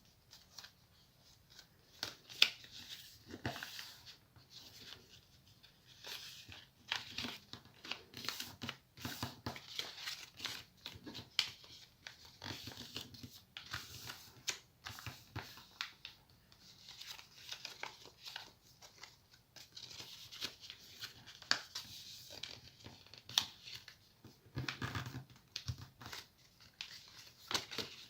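A sheet of paper being folded and creased by hand: irregular rustling and crinkling with short snaps.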